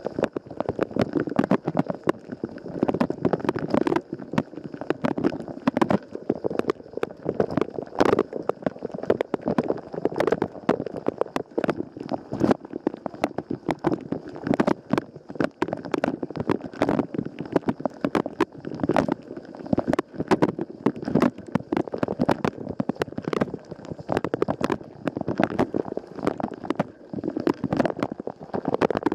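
Water from the Rosenlew dishwasher's spray jets splashing and pattering hard against the inside of the tub, heard from inside the running machine: a dense, irregular spatter of sharp hits over a continuous wash of water, with a faint steady high tone behind it.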